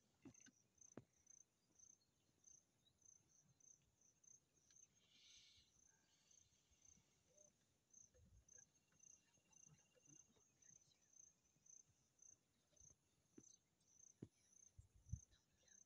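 Near silence, with a faint insect chirping at an even pace of about two chirps a second. A couple of low bumps come near the end.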